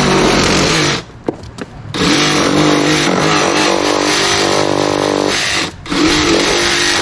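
A power cutting saw running under load in bursts to shave down an edge that is too high. The first run stops about a second in, the saw starts again, pauses briefly near the end, and runs once more.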